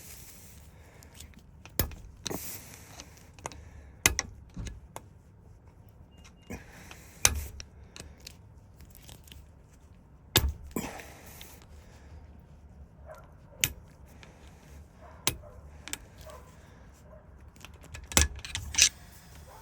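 Irregular sharp metal clicks and taps, about a dozen spread a second or more apart, from small tools and parts as a Ford lock cylinder is worked apart at a bench vise.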